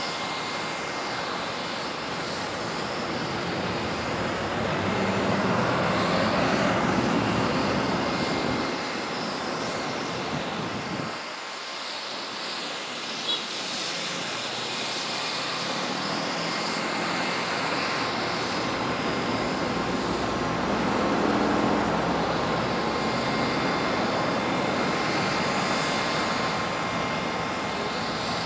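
Steady jet aircraft noise at the airfield: a continuous rushing hum with a thin high whine over it. It swells a little twice, and the low rumble briefly drops away near the middle.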